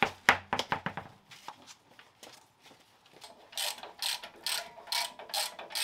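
A few knocks as the wheel is lifted off the rear hub. Then, about three and a half seconds in, a hand ratchet wrench clicks in even strokes, about two a second, at the rear axle.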